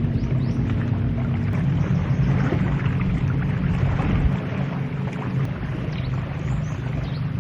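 An engine running steadily with a low hum, with wind noise over it.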